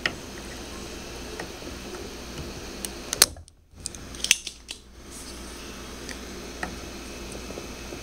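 Spring-loaded desoldering pump (solder sucker) being cocked and fired to pull molten solder off a capacitor's leads: several sharp clicks and snaps, the loudest about three seconds in, over a steady background hum.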